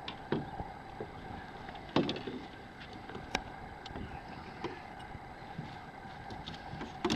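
A few knocks and clicks of a landing net's pole and frame being handled against the side of a small boat as a trout is brought aboard, the loudest about two seconds in, over a steady hum.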